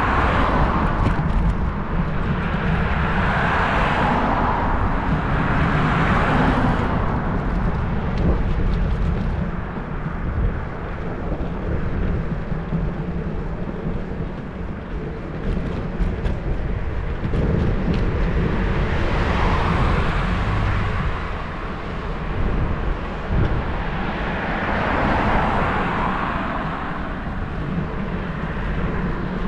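Cars passing one after another, their tyre and engine noise swelling and fading about five times, with a quieter stretch in the middle. Under it runs a steady low wind rumble on a bicycle-mounted camera's microphone.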